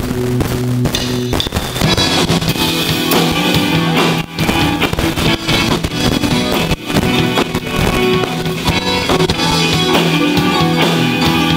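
A live rock band playing with electric guitars, a drum kit and a stage piano, the drums keeping a steady beat under held chords.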